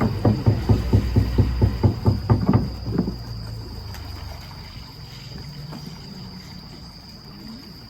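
A rapid, even series of about a dozen sharp knocks, roughly four a second, lasting some three seconds, then a steady low rumble, over a continuous high insect-like tone.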